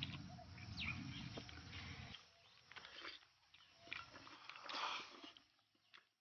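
Close-up eating sounds: a man chewing and slurping mouthfuls of fatty sliced pork in chili-garlic sauce, heard as several short, wet bursts with quiet between them.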